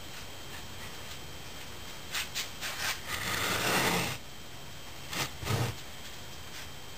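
Wooden molding flask of a rammed greensand mold being worked by hand, wood scraping and knocking on wood: a few short knocks, about a second of rough rubbing, then two dull thumps. The cope is being worked loose from the drag.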